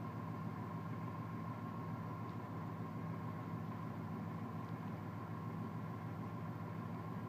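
The 4.3-litre throttle-body-injected V6 of a 1994 Chevy S10 pickup idling steadily, heard from inside the cab, with a faint steady whine above the engine's low hum.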